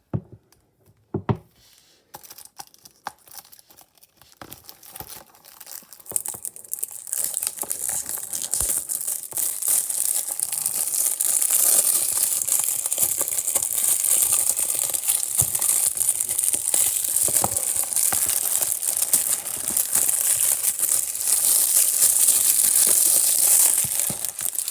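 Plastic shrink wrap being torn and peeled off a Blu-ray case: scattered crackles at first, then continuous crinkling from about six seconds in.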